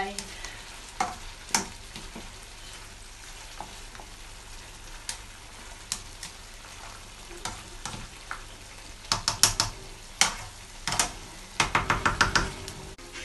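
Black slotted spatula stirring and scraping through potato-leaf sauce in a nonstick frying pan over a steady sizzle, with scattered clicks of the spatula on the pan that come as two quick runs of taps in the last few seconds.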